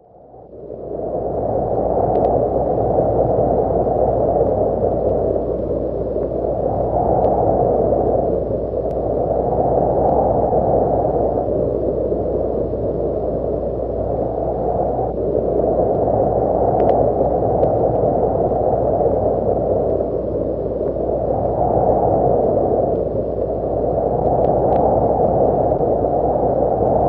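A steady rushing noise, low and dull, that fades in over the first couple of seconds and then swells and eases about every three seconds, with a few faint clicks.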